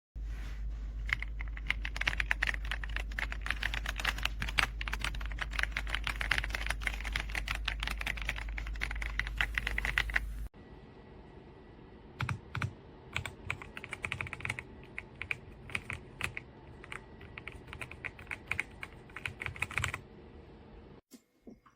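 Typing on a gasket-mounted 75% mechanical keyboard, the RK Royal Kludge R75: a fast, continuous stream of key clacks over a steady low hum. About ten seconds in it cuts suddenly to a quieter take with sparser keystrokes, which stop near the end.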